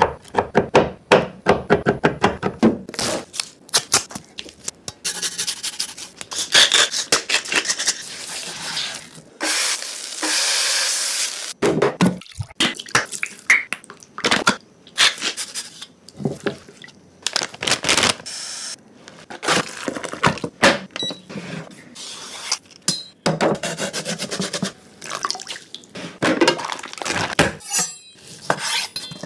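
Close-up steak preparation sounds: a handheld meat tenderizer stabbing raw steak in rapid clicks during the first few seconds, followed by a run of separate wet handling, pouring and squelching sounds on a wooden board and in a glass bowl, with a steady hiss lasting about two seconds partway through.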